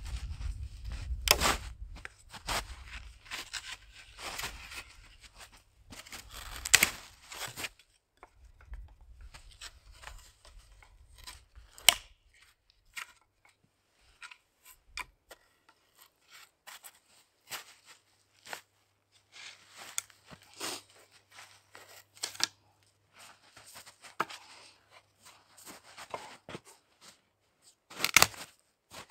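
Dry dead branches being pulled out of deep snow and broken, with boots crunching in the snow. The result is a series of sharp cracks and crunches with quiet gaps between, the loudest about a second in, near seven seconds, near twelve seconds and near the end.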